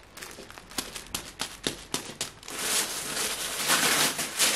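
Packaging rustling and crinkling as a gift box is unwrapped: scattered crackles at first, then denser, louder rustling from about halfway through.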